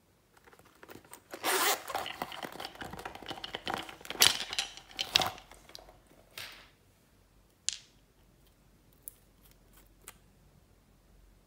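Zipper of a small glossy coin purse being pulled open, rasping in several strokes with rustling handling noise for about four seconds, followed by a few light clicks of small bottles being handled.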